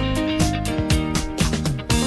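Background music: an upbeat track with plucked guitar and a steady beat.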